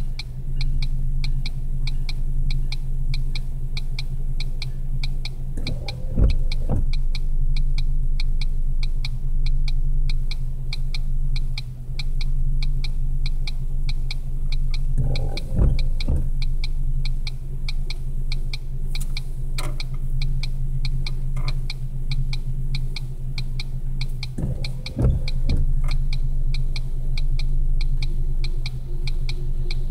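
Inside a parked, idling car: a steady low engine hum with an even ticking about twice a second. Three times, about every nine to ten seconds, the windshield wipers make a short double swish-and-thump sweep across the rain-wet glass.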